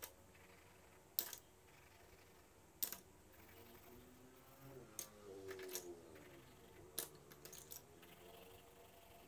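Wooden coloured pencils clicking against each other as they are taken from and put back into a basket of pencils: sharp, separate clacks every second or two.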